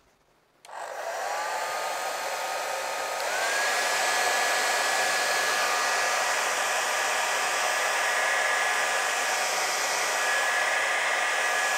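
Handheld hair dryer switched on under a second in, its whine rising as the fan spins up, then stepping up in pitch and loudness about three seconds in and running steadily.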